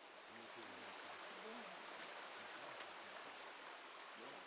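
Faint, steady rush of a river flowing over rocks, with indistinct voices in the background.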